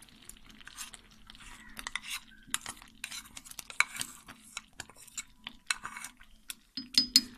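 Utensil scraping and tapping against a bowl as thick date paste is scraped out of it into a pot: irregular clicks and scrapes, with a louder clatter of clinks near the end.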